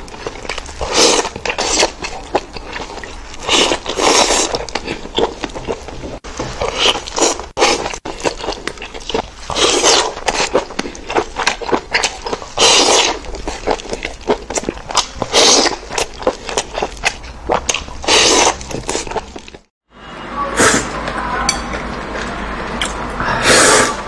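A person chewing and slurping octopus close to a clip-on microphone: loud wet mouth sounds coming in bursts every second or two. A brief drop to silence falls about 20 seconds in.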